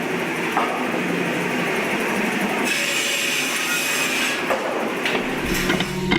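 Chainsaw running and cutting into wood, a steady loud saw noise that shifts abruptly partway through.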